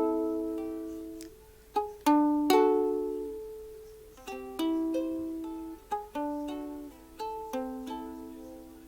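Acoustic stringed instrument playing the song's closing chords: a few slow strums, each ringing out and fading, with the playing dying away toward the end.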